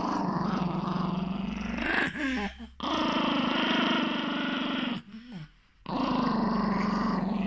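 Small long-haired dog growling in three long, steady growls, each broken by a brief pause about two and five seconds in. These are the warning growls of a snarly dog guarding his fleece blanket.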